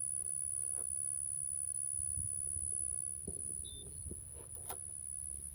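Steady high-pitched drone of insects over a low rumble, with a few faint knocks.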